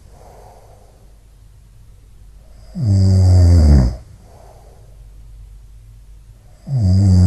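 A domestic cat snoring in a steady rhythm: two loud snores about four seconds apart, each lasting about a second, with a fainter breath between them.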